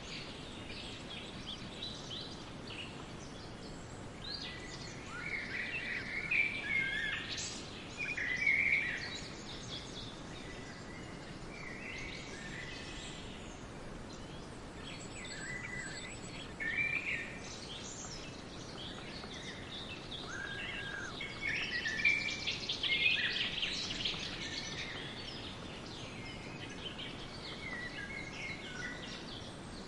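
Several songbirds singing and chirping in a spring forest, in scattered phrases that come thicker twice, over a steady soft background hiss.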